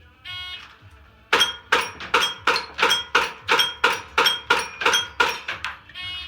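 Electronic shot-timer beep, then a fast string of about fifteen airsoft shots, roughly three a second, each with the metallic ring of BBs hitting steel target plates. A second timer beep at the very end.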